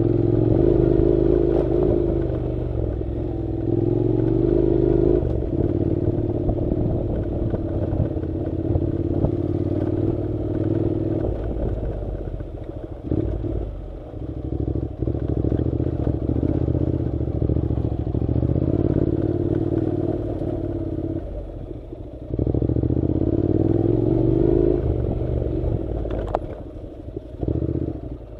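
Honda NC700's parallel-twin engine pulling a motorcycle along a dirt road, its pitch rising and falling with the throttle. The engine sound drops away briefly a few times, about halfway through, near two-thirds and near the end.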